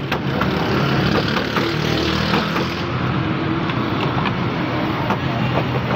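Steady roadside traffic noise with a low hum running under it, and scattered light knocks and clicks as a plastic jar is worked against a steel tray.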